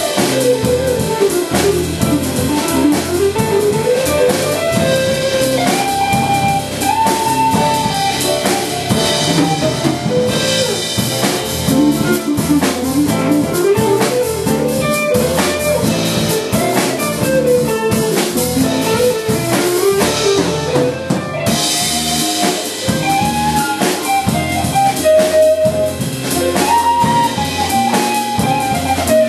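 Live jazz band playing, with drum kit, bass and guitar under a flowing lead melody line that rises and falls in long phrases.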